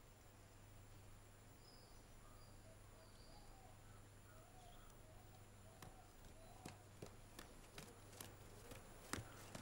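Quiet outdoor background with a few faint chirps. From about six seconds in, a run of light footsteps, about three a second, coming down concrete steps.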